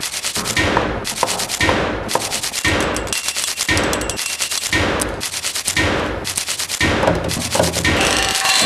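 Hands slapping and striking hard objects, metal among them: a dense run of sharp knocks and clangs overlapping in a rough rhythm that swells about once a second.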